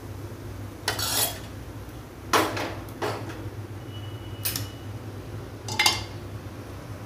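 Steel kitchen utensils clinking against a small stainless-steel pot, four sharp clanks a second or so apart; the last, near the end, comes as steel pot tongs clamp onto the pot's rim.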